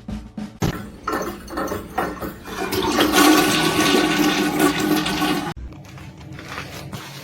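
Rushing water for about five seconds, starting half a second in and cutting off suddenly.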